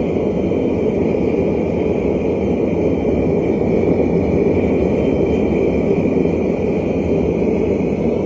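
Forge running with a steady, loud roar while a Damascus billet heats in it.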